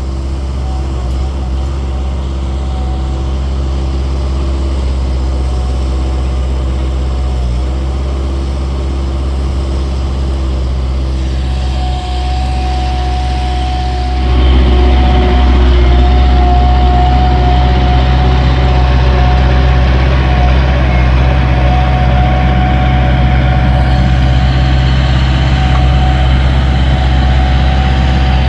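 Skid steer diesel engine running steadily, with a thin steady whine coming in near the middle, where the engine gets louder and stays up.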